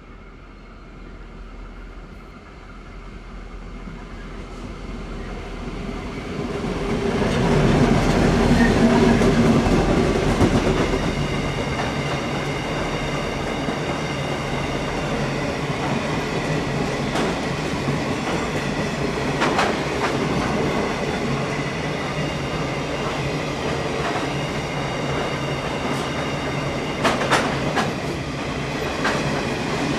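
Two G-class diesel-electric locomotives approaching and passing at the head of a freight train, loudest about eight to ten seconds in, followed by the steady rumble and clickety-clack of the loaded rice wagons rolling by, with a few sharp clacks near the end.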